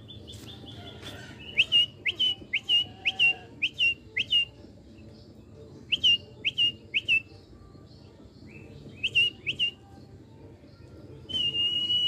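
A man whistling through pursed lips to call birds: quick, short rising notes repeated about twice a second in three runs, then one long held note near the end.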